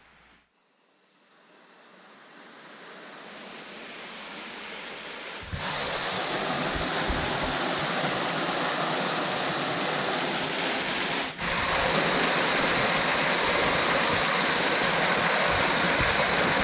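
Tall waterfall's falling water making a steady rush. It fades in over the first few seconds, jumps louder about five seconds in and drops out for an instant near eleven seconds, with low wind buffeting on the microphone.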